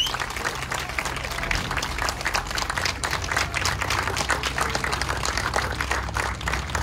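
Audience applauding: many hands clapping irregularly and steadily.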